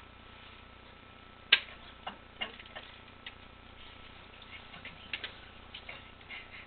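Scattered light clicks and ticks at an irregular pace, with one sharp click about a second and a half in.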